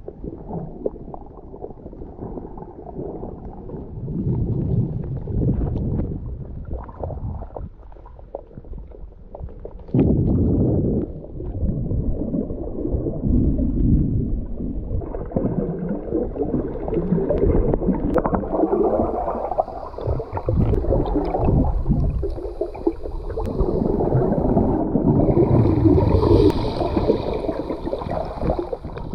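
Muffled underwater rumbling and gurgling picked up by a submerged camera while snorkelling, with uneven surges of water movement. Fainter higher sounds join in from about halfway.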